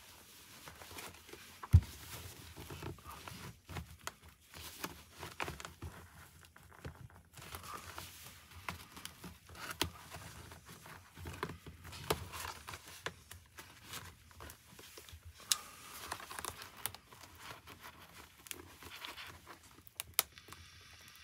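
Hands working on the inside of a motorcycle helmet, fitting the padded liner and cheek pads: fabric and foam rustling, scraping and irregular plastic clicks, with one loud thump about two seconds in.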